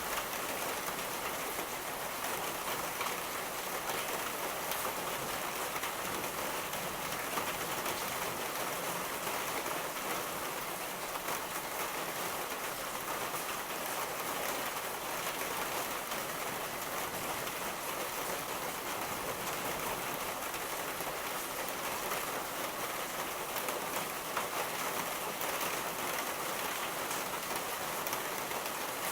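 Steady rain falling, an even hiss of many drops landing on surfaces, with no thunder.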